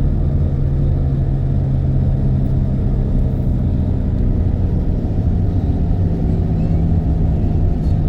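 Steady low engine rumble with a constant hum, unchanging in level.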